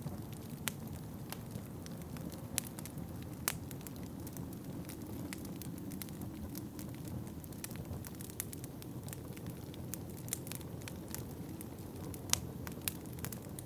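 Wood fire crackling in a fireplace: scattered sharp pops and snaps, a few louder ones about three and a half seconds in and near the end, over a steady low rumble.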